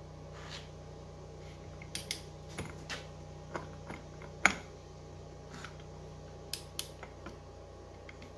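Scattered light clicks and taps of metal tools and small engine parts being handled on a workbench, irregular, the sharpest about four and a half seconds in, over a steady low hum.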